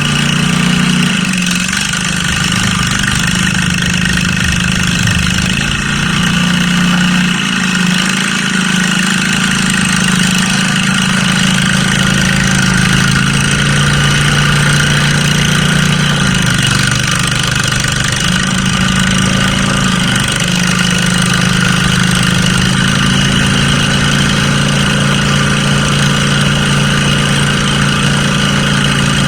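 Small engine of a mud mower running steadily and loudly, its pitch shifting up and down a few times as the throttle changes.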